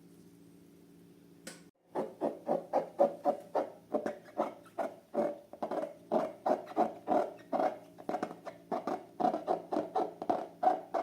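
Slime being squeezed and worked by hand, a quick run of short wet clicks and pops, about three a second, starting about two seconds in after a faint steady hum.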